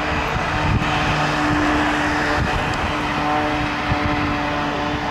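Propeller aircraft engine droning steadily overhead, its pitch held level, with two light bumps on the microphone, about a second in and near four seconds.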